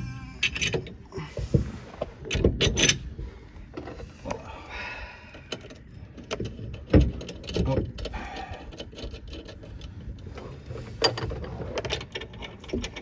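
Hand tools and metal car parts clinking and knocking in irregular clicks and knocks during work on the car's differential and suspension.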